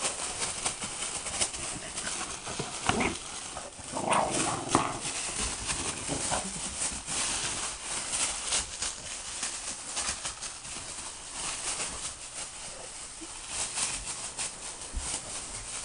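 Boston terrier puppies ripping and shaking gift wrapping paper, a continuous crackly rustling and tearing of paper, mixed with sounds from the dogs themselves, loudest about four to five seconds in.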